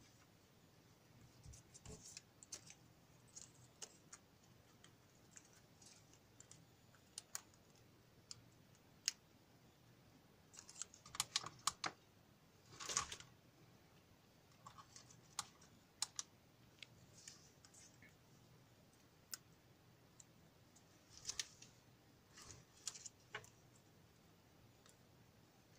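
Faint, scattered clicks and short rustles of alligator test clips and small electronic parts being handled on a workbench.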